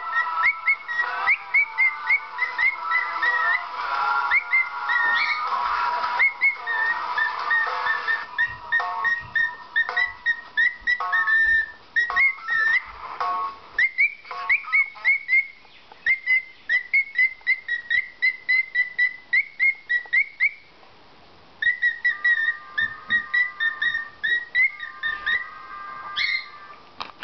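Cockatiel calling in long runs of short, rising whistled chirps, about three a second, with a brief pause about three-quarters of the way through.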